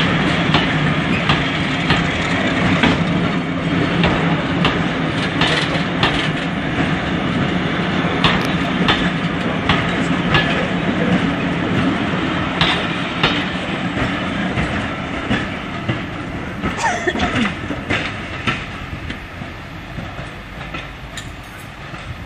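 Coaches of a diesel-hauled passenger train rolling past at low speed, wheels clacking over rail joints, with a low steady drone underneath. The sound fades as the last coach draws away.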